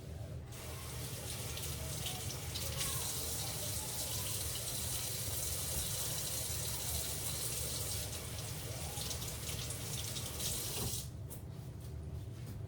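Kitchen tap running into the sink, water splashing steadily; it comes on about half a second in and is shut off about eleven seconds in.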